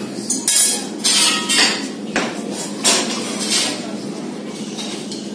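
Metal clanking as crucible tongs and the hot crucible knock and scrape against the iron mould and table after molten gold is poured. There are about seven sharp, irregular clanks, some ringing briefly, over a steady low hum.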